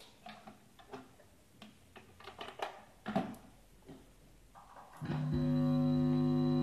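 Guitar: a few soft taps and muted string plucks, then about five seconds in a loud chord starts suddenly and holds steady.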